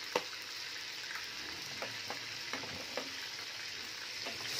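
Chicken pieces frying in hot oil with freshly added spices, a steady sizzling hiss. A wooden spoon stirs through the pot, with a sharp click near the start and several light knocks against the steel.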